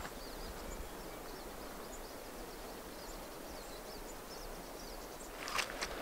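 Quiet open-air ambience with faint distant birds chirping now and then. A few brief rustling knocks come near the end.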